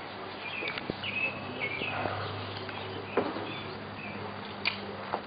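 A bird chirping repeatedly, short high notes at a few places, over a steady outdoor background. A few sharp clicks and taps, the loudest about three seconds in.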